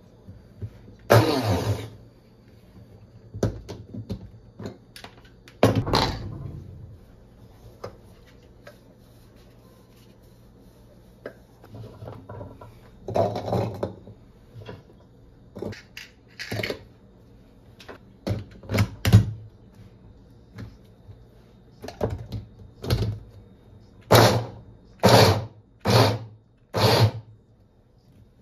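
Scattered knocks and clatters of objects being handled, a few of them longer and scraping. Near the end come five sharp knocks about a second apart.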